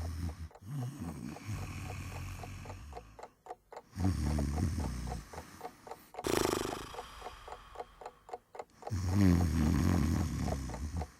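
Library sound effect of a man snoring in his sleep, drawn-out snores every few seconds with a sharper snort about six seconds in, over a clock ticking steadily about four times a second.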